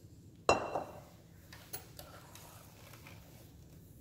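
Light handling noises of kitchen things on a countertop: one sharp knock about half a second in, then a few faint scattered clicks.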